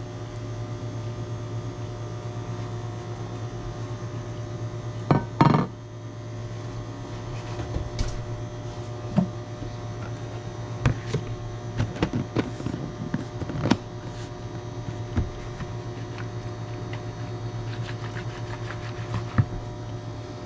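Glass baking dish and plastic bowl knocking and scraping as cooked shrimp are tipped from the dish into the bowl and a plastic lid is fitted on, a scattered run of clicks and knocks with a short louder clatter about five seconds in. A steady low hum runs underneath.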